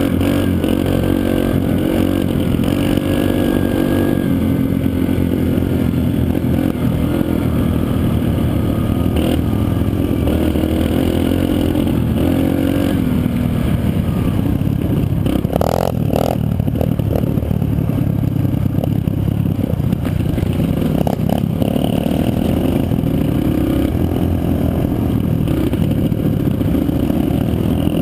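Dirt bike engine running and revving as the bike is ridden along a trail, heard from a helmet-mounted camera, with a few clattering knocks about halfway through.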